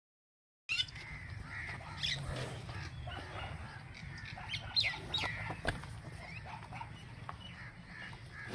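Birds chirping and calling, with many short notes, some falling in pitch, over a low steady rumble. This starts after a moment of silence at the beginning.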